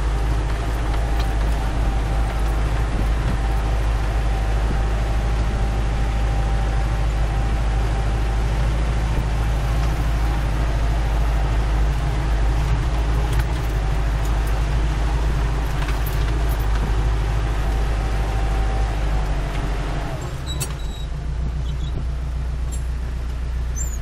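McCormick tractor's diesel engine running steadily, heard from inside the cab, with a thin steady whine over the low rumble. About twenty seconds in the whine stops and the sound drops a little as the engine eases off.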